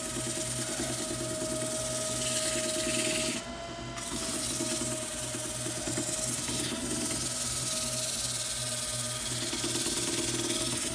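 Sandpaper pressed by hand against an oak bowl spinning on a wood lathe, a steady hiss over the lathe motor's hum. The hiss drops out briefly about three and a half seconds in while the hum carries on.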